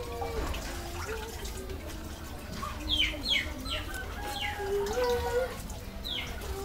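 Hands washing dishes in a plastic basin of water, with splashing and dripping, while a bird gives several quick falling chirps about three to four and a half seconds in and once more near the end. A slow, low tune with held notes runs underneath.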